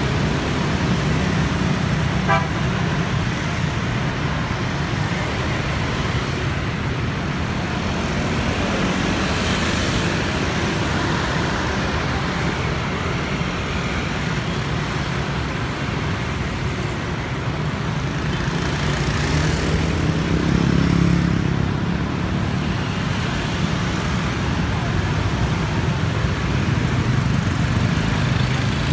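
Dense motorbike-scooter and car traffic passing, with a steady hum of small engines and tyres. A short horn toot sounds about two seconds in, and a vehicle passes louder about two-thirds of the way through.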